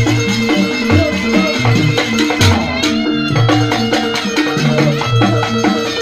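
Reog gamelan ensemble playing: a slompret shawm carries a held, wavering melody over kendang barrel-drum strokes, a struck hanging gong and small kettle gongs.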